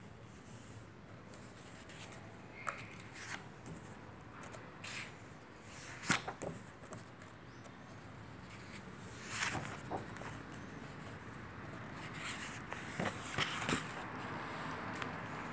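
Pages of a book being turned by hand, the paper rustling and flapping in short spells every second or two, with a few sharper page snaps.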